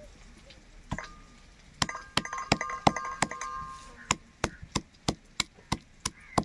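Stone pestle pounding garlic cloves and red chilli powder in a stone mortar: a single knock about a second in, then steady strikes about three a second, the earlier ones with a ringing clink.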